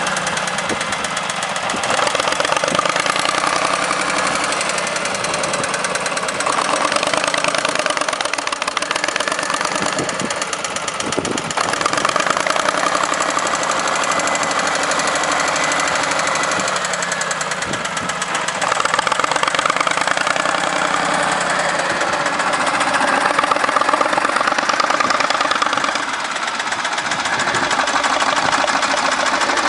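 A backhoe tractor's diesel engine running continuously with a steady, fast knocking beat, its level swelling and easing a little several times as the revs or load change.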